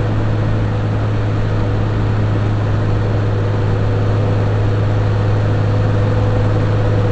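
Car engine and road noise heard from inside the cabin: a steady, even drone at constant speed, with no rise in pitch.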